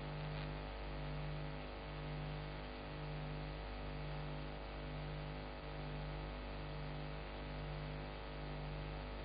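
Steady electrical mains hum on the recording, with a low buzzing tone that swells and fades about once a second; no speech or music.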